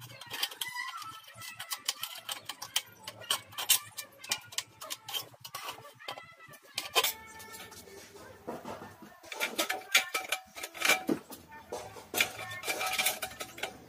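Aviation tin snips cutting thin galvanized steel channel: an uneven run of sharp metallic snips and crunches, several a second.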